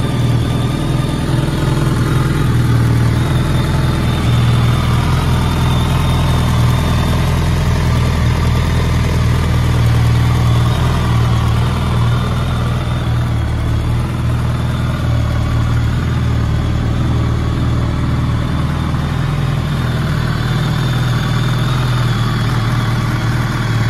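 2009 BMW K1300S motorcycle's inline four-cylinder engine idling steadily, with no revs.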